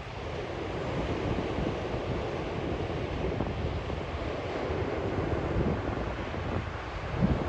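Steady rush of rough surf breaking on the shore, mixed with gusting wind rumbling on the microphone.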